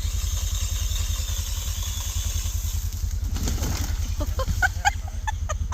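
An engine running at a steady low throb, with a few short high chirps over it in the second half; the sound cuts off abruptly at the end.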